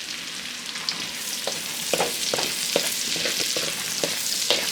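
Garlic sizzling as it sautés in hot bacon fat in a pan, stirred with a utensil that clicks and scrapes against the pan several times from about a second and a half in.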